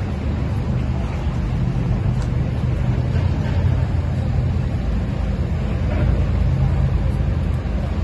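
Low, steady engine drone with no revving from a lowered Honda Civic creeping at idle over a steel-grated ferry loading ramp.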